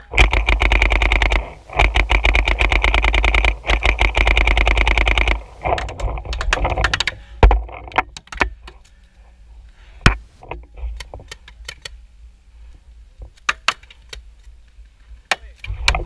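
Paintball marker firing rapid strings of shots, about a dozen a second, in three long bursts with short breaks. Shorter ragged bursts follow, then scattered single sharp cracks.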